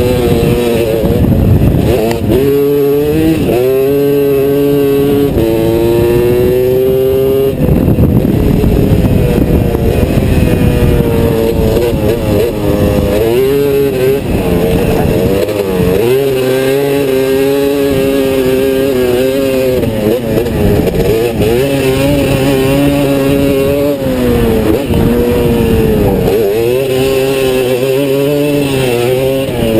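Racing three-wheeler's engine heard from a camera on its handlebars, revving up and dropping back again and again as the rider accelerates down the straights and backs off for the corners. A long climbing rev in the first several seconds falls off suddenly near the eight-second mark.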